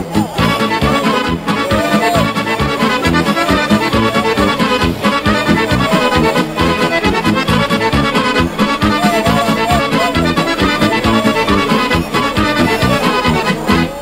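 Accordion-led traditional music with a steady beat.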